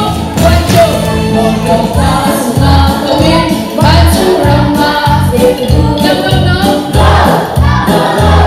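Upbeat backing-track music with a steady bass beat, played loud through a PA, with a woman singing along into a microphone.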